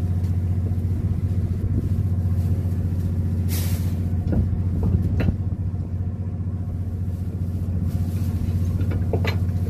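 Fishing boat's machinery running with a steady low drone. About three and a half seconds in there is a short rustle, followed by a few light clicks of tackle being handled, and another click near the end.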